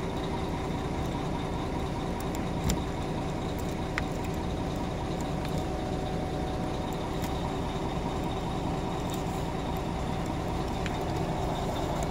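Mercedes-Benz Travego coach's diesel engine idling steadily, with a thin steady high tone over the rumble and a few light clicks.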